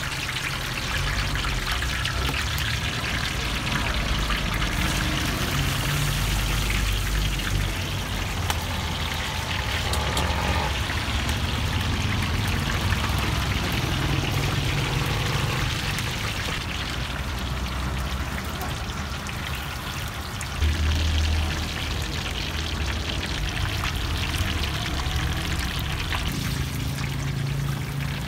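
Prawn-topped lentil vadai deep-frying in a large wok of hot oil: a steady crackling sizzle. A short low thump comes about two-thirds of the way through.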